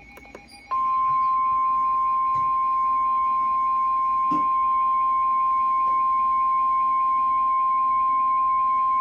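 NOAA Weather Radio warning alarm tone, a single steady pure tone of about 1050 Hz. It starts less than a second in and holds unchanged, signalling that a warning broadcast, here a severe thunderstorm warning, is about to follow.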